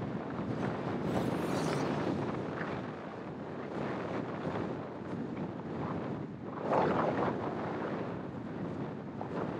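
Wind buffeting the microphone of a camera mounted outside a moving car, over road and traffic noise, with a louder swell about seven seconds in.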